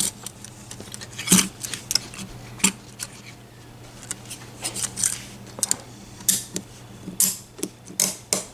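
Smith & Wesson M&P handcuffs being ratcheted shut on the wrists: irregular metallic clicks and clinks, the loudest about a second in, over a low steady hum.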